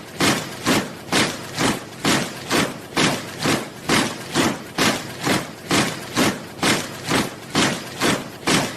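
Soldiers marching in step, boots striking the ground together in an even rhythm of about two steps a second.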